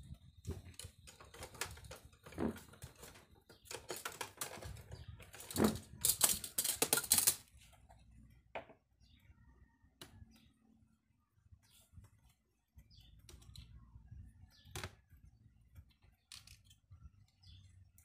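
Clicking and clattering of a black plastic project box being handled while wires and parts are fitted through its holes: a busy run of sharp clatter about four to seven seconds in, then scattered single clicks.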